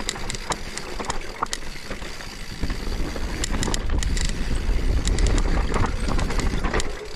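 Mountain bike riding down a loose dirt trail: tyres crunching over gravel and the bike rattling with many scattered clicks over bumps. Wind rumbles on the microphone, heaviest from about three to six seconds in.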